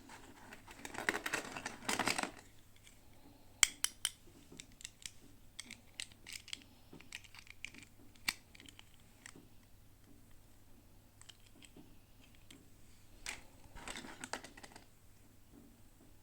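Plastic toy packaging being handled: two spells of crinkling and rustling, near the start and again near the end, with a string of small sharp clicks and taps in between as the pieces are opened and handled.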